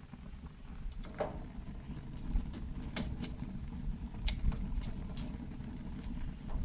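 Charcoal burning in a grill with tall open flames: a steady low rumble of fire with a handful of sharp crackles and pops scattered through it.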